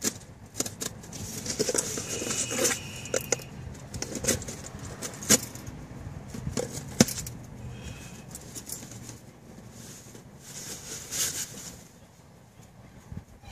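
A car charger's retail packaging being handled and opened: irregular rustling with sharp clicks and snaps, the loudest about five and seven seconds in.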